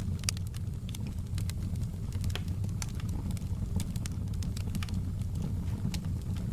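Wood fire crackling in a fireplace: frequent sharp pops and snaps over a steady low rumble of burning.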